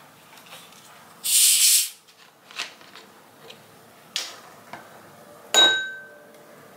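Plastic soda bottle of carbonated Sprite twisted open, the gas escaping in a loud hiss for under a second. A few small plastic clicks follow as the cap is handled, then a metal spoon clinks once against a small glass bowl and rings briefly.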